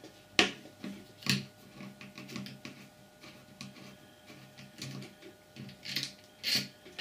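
Clicks and knocks of small metal and plastic parts being handled as a 12 V air compressor's pump is taken apart by hand: a sharp knock about half a second in, then scattered lighter clicks and two more knocks near the end.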